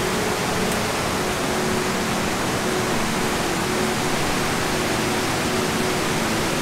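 Mountain river rushing over rocks in rapids: a steady, loud wash of white water.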